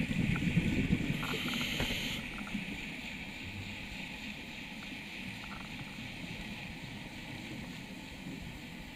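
Underwater sound of a scuba diver breathing through a regulator, heard muffled through the camera housing. Exhaled bubbles bubble and gurgle in the first two seconds, with a short hiss of air about a second in, then a quieter steady low wash of water.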